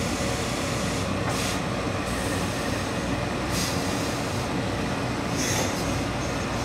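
Hose-fed steam iron pressing wool suit trousers: three short hisses of steam about two seconds apart, over a steady loud rushing hum.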